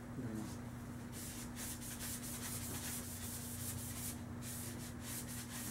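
Hand polishing of an air rifle barrel: a pad rubbed quickly back and forth along the metal, making a rapid scraping hiss that starts about a second in. The polishing smooths the machining ridges and brings up a shine.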